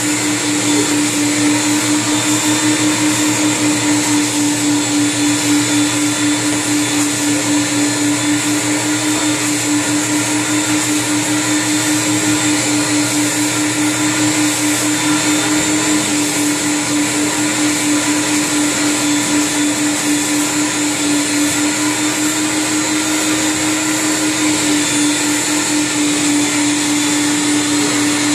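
Carpet extraction machine's vacuum running steadily, sucking through a steel floor wand as it is stroked over carpet: a constant hum with a high hiss.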